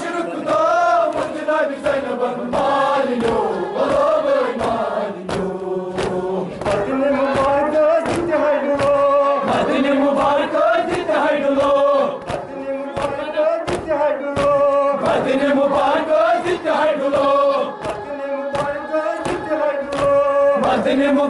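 A group of men chanting a Kashmiri noha, a Shia lament, in unison. Their voices are punctuated by a steady beat of sharp slaps, typical of hands striking chests in matam.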